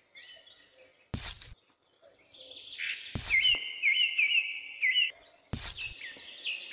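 Birds chirping, with one repeated short chirping phrase, interrupted three times by brief hissing bursts.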